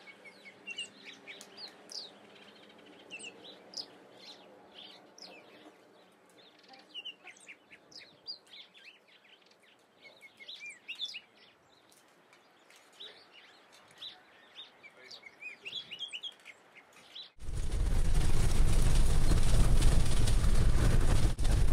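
Small birds chirping and twittering in many short, high calls. About seventeen seconds in, this is abruptly replaced by loud, steady rumble and wind noise of a vehicle driving on a gravel road, heard from inside the cab.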